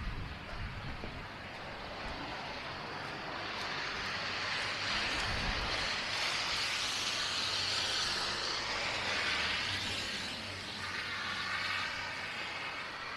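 A passing vehicle: a broad hiss that builds over a few seconds, holds for several seconds, then fades near the end.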